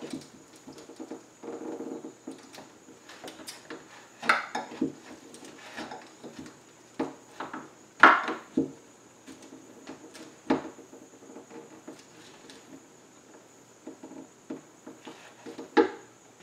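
Metal putty knife scraping and prying along the edge of a window pane and its frame, cutting under the glazing tape to free the glass. The strokes are irregular, with a few sharper knocks, the loudest about halfway.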